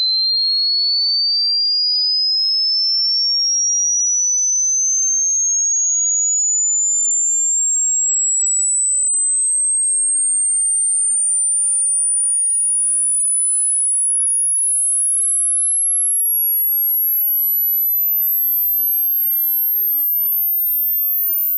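Hearing-test sine tone: one pure whistle rising slowly and steadily in pitch from a high whistle to a very high, thin tone, at an even loudness. It is an age-hearing sweep, and the point where a listener stops hearing it marks the upper limit of their hearing.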